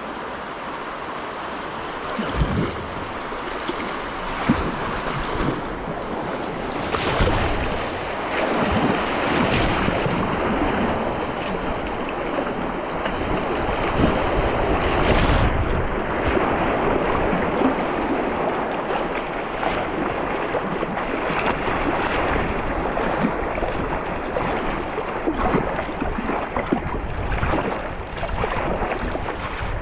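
Water splashing and rushing around a kayak being paddled, with irregular splashes over a steady wash and wind noise on the microphone.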